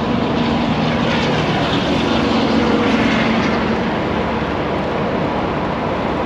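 A vehicle's engine droning steadily as it drives by, with a low hum that grows a little louder a few seconds in.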